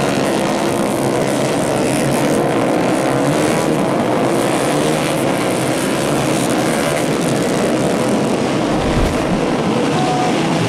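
A pack of 150cc four-stroke underbone race motorcycles revving hard through a corner, on racing exhausts. Several engines overlap, their pitch rising and falling as the riders brake and accelerate.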